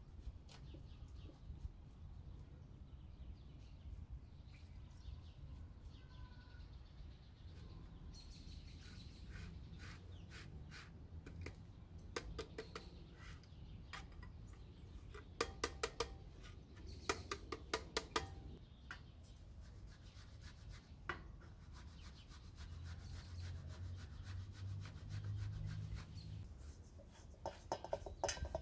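Cooked food being grated by hand on a metal box grater: faint scraping strokes, with runs of quick sharp clicks from the grater's metal face, busiest in the middle and again near the end.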